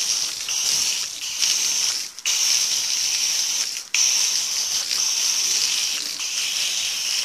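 A foam gun's jet of water and thin soap hissing and splattering on a car's door panel and window glass. The spray cuts out briefly twice, about two and four seconds in.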